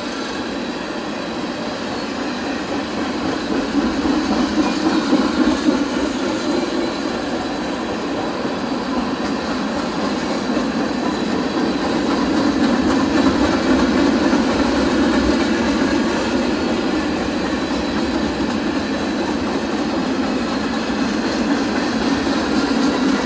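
Loaded freight cars of a CSX train rolling past at speed: a continuous rumble of steel wheels on the rails, swelling twice, about four seconds in and again near the middle.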